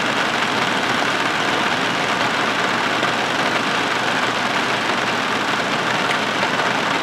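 Distilled water at a rolling boil in an aluminium foil pan on a stove, a steady bubbling noise that holds even throughout; this is the boiling step of slow rust bluing, which turns the red rust on the steel parts black.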